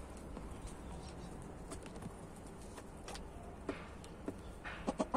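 Quiet backyard ambience with a few short, soft chicken calls, most of them in the last second and a half.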